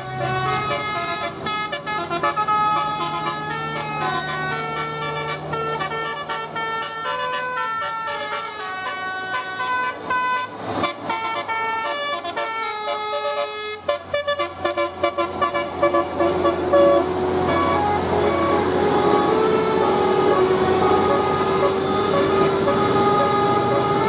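A bus's telolet horn, a Basuri multi-tone air horn, playing a tune of quick stepped notes over and over. In the last third a long held tone slowly rises beneath the notes.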